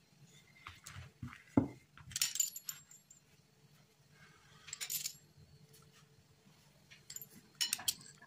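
Metal fluted pastry wheel clinking and rattling in three short bursts as it is run across the dough on a hard counter. There is a single knock about a second and a half in.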